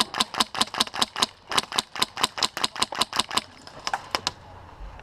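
Polarstar HPA-powered M4 airsoft rifle firing a fast string of semi-auto shots, about five a second, then after a brief pause a few more shots.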